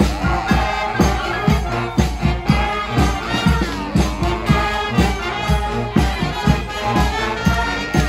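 Live street brass band playing: horns holding a melody over a steady, driving drum beat.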